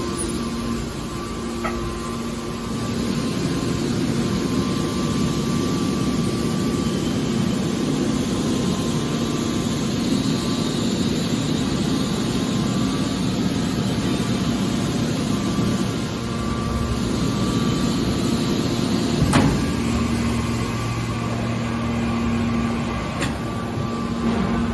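Metal baler machine running with a steady mechanical hum, with a single sharp clunk about 19 seconds in.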